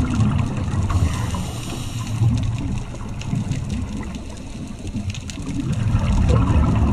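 Muffled underwater sound as picked up by a camera in a waterproof housing: a low, uneven water rumble that eases off about four seconds in and swells again near the end, with faint scattered clicks.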